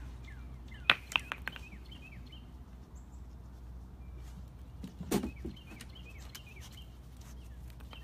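Small bird chirping over and over, each call a short falling note, against a steady low background hum. A quick run of four sharp clicks comes about a second in, and a short dull knock about five seconds in.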